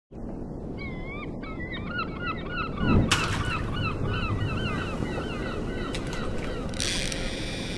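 Gulls calling over and over in quick succession over a steady low rush, with a loud thump about three seconds in.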